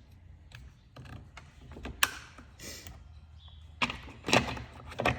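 Chainsaw parts being handled and fitted back on by hand: a series of sharp clicks and knocks, the loudest near the end, over a steady low hum.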